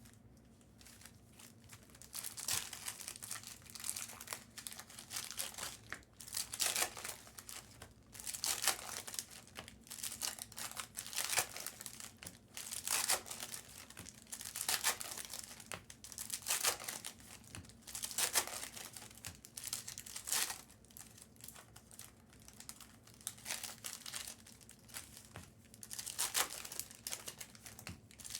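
Crinkling and tearing of trading-card box and pack packaging as the packs are handled and unwrapped, coming in repeated bursts about every two seconds.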